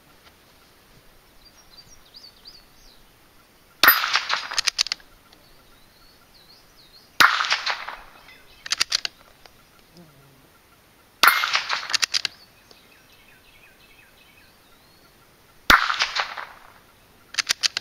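Four shots from a Marlin Model 80 bolt-action .22 LR rifle, about four seconds apart. Each sharp crack is followed about a second later by a quick run of clicks as the bolt is worked to chamber the next round.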